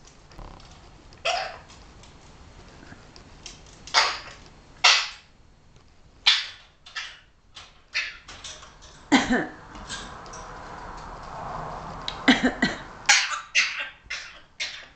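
African grey parrot making a string of short, sharp noises (clicks, squawks and mimicked coughs), with a longer hissy sound about ten seconds in and a quick run of sounds near the end.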